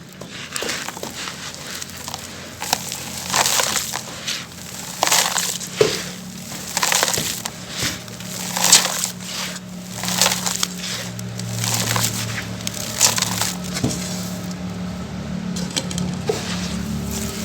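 Lumps of charcoal being crushed and crumbling, a run of crisp, gritty crunches about once a second.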